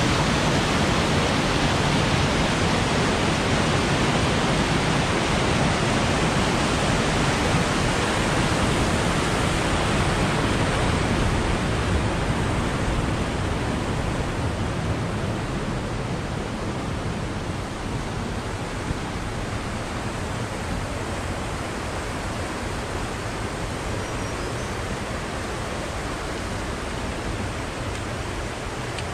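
Rocky mountain creek rushing and cascading over boulders: a steady whitewater rush that fades gradually from about halfway through.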